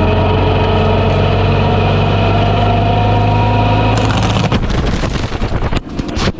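Cat 308 excavator and Fecon Bullhog forestry mulching head running steadily at working speed. A little over four seconds in, the steady drone cuts out and a run of sharp knocks and cracks follows.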